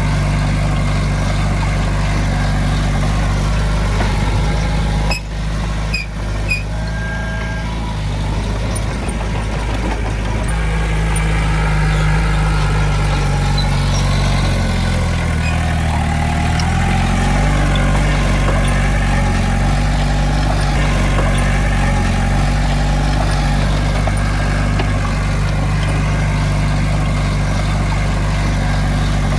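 Diesel engines of heavy earthmoving machinery running steadily, the engine pitch dipping and then rising again about halfway through. A few short clacks come about five to seven seconds in.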